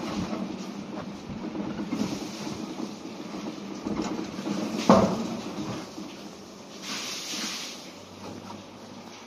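Water-powered funicular carriage of the Lynton and Lynmouth Cliff Railway rumbling on its rails and slowing as it arrives at the bottom station. A single loud clunk comes about five seconds in, a short hiss follows near seven seconds, and then only a faint steady hum is left.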